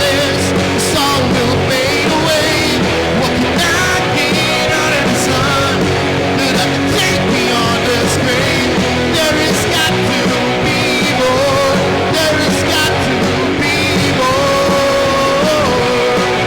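A rock band playing live: electric guitar, bass and drums, with a singing voice over them.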